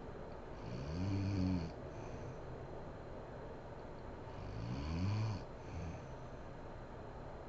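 A woman snoring in her sleep: two long snores about four seconds apart, each rising in pitch as it starts, over a steady background hiss.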